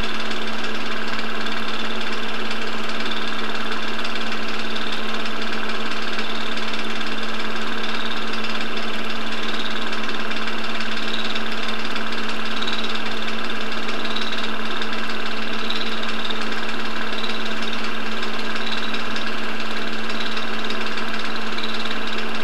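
Film projector running while an old silent home movie plays: a steady motor hum with an even mechanical rattle from the film advancing.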